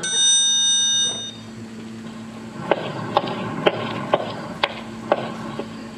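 A bright, bell-like chime rings for about a second, then a series of short sharp knocks, about two a second, sounds over a steady low hum.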